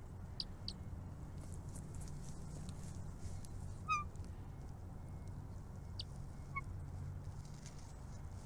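A few short, scattered bird calls, the loudest about four seconds in, over a steady low hum.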